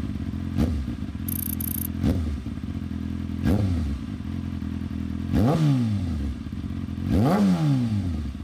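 Motorcycle engine idling with five quick throttle blips, each a short rise and fall in pitch; the last two are longer and louder.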